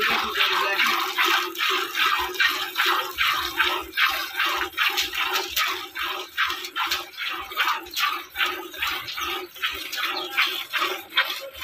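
Hand milking of a cow: milk squirting from the teats into a steel pail in a steady rhythm of about two to three squirts a second.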